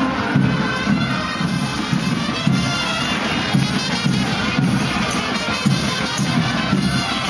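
Live band music accompanying a regional folk dance, with wind instruments prominent over a steady beat, and the murmur of a large outdoor crowd beneath it.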